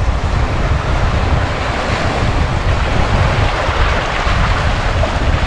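Sea surf washing onto the shore, one wave building to its loudest a little after the middle, with wind buffeting the microphone.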